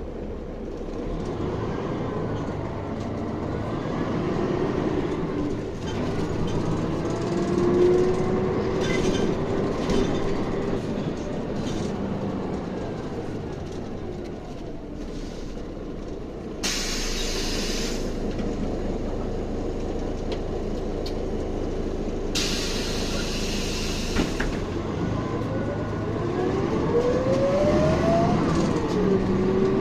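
City bus heard from inside while under way: steady engine and drivetrain rumble with a gliding whine that rises near the end as it picks up speed. About two-thirds of the way through come two loud hisses of compressed air, a few seconds apart.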